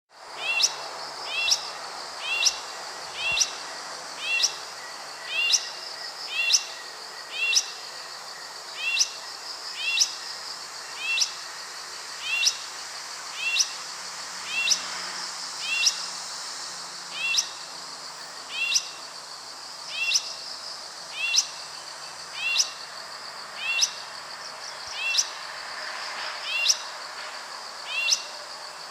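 Buff-vented bulbul calling: one short, sharp call repeated evenly, a little more than once a second, over a steady high hiss of background noise.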